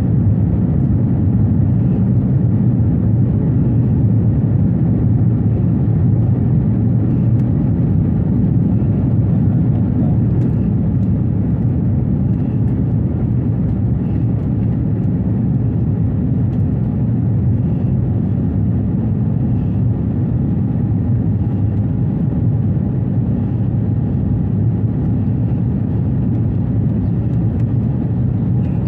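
Steady low drone of a jet airliner's cabin, engine and airflow noise heard from inside the aircraft.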